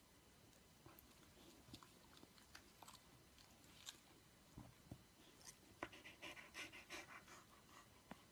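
Near silence with faint wet clicks and mouth smacking from a dog as it yawns and works its tongue and jaws. The clicks come in a quick cluster about six to seven and a half seconds in.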